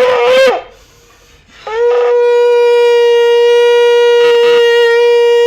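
Shofar blasts. One blast ends just after the start with a quick upward flick of pitch. After about a second's pause, a second long, steady blast begins and holds.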